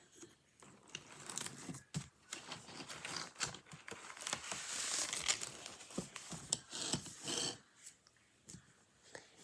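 Crinkling, rustling handling noise with many small sharp clicks, lasting about six seconds and stopping abruptly near the end.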